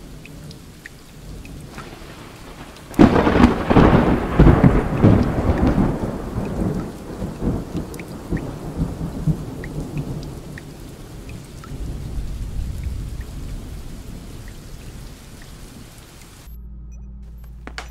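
Steady rain, with a loud thunderclap about three seconds in that rumbles away over several seconds. The rain cuts off suddenly near the end.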